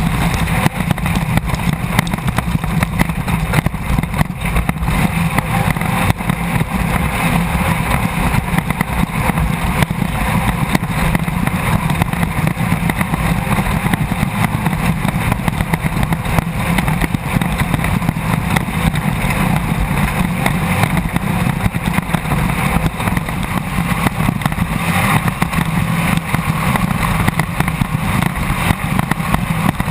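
Onboard sound of a Class 1600 off-road race car at speed: its air-cooled 1600 cc VW engine running steadily under load, mixed with loud continuous wind and road noise.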